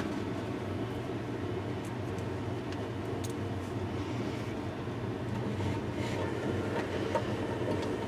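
Steady low hum of background machinery with a few faint light clicks.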